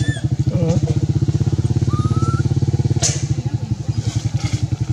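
A small engine idles steadily with a fast, even throb. A baby macaque gives one short rising coo about two seconds in, and there is a sharp click about a second later.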